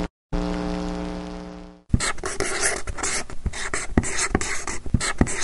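A single held note fades out over about a second and a half. Then a scratchy pen-on-paper scribbling sound effect runs in quick strokes while lettering is written out.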